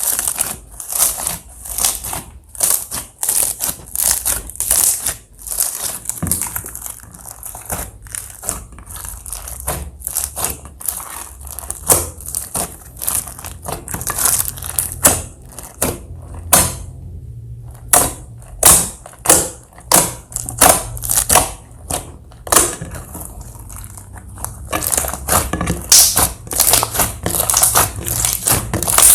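Slime being pressed and mixed by hand, making a continuous run of short, irregular crackles and pops, several a second.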